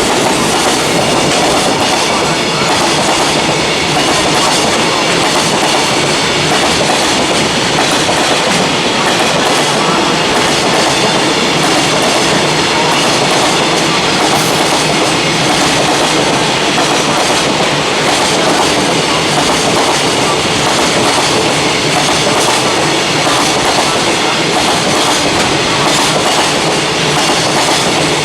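A long freight train passing close by, its wagons' steel wheels rolling over the rails in a steady, loud rush.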